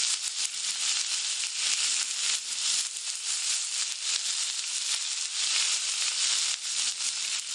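Steak sizzling in a cast-iron skillet: a dense, steady hiss with a scatter of pops and crackles.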